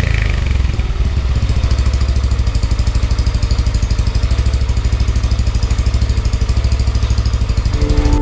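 Yamaha NMAX scooter's single-cylinder engine idling through an aftermarket OPP Podium power pipe exhaust, with a steady, even exhaust pulse.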